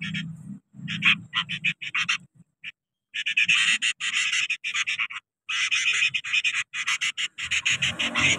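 Sooty-headed bulbul nestlings making rapid, harsh chirping calls in dense bursts, with brief pauses between clusters; a low rumble runs underneath.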